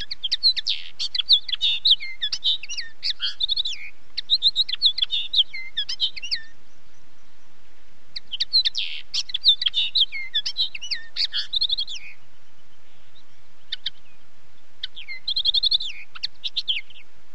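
Common linnet singing: long phrases of rapid, varied chirps and short trills, high-pitched, in three runs separated by pauses of a second or two, with a couple of lone notes before the last run.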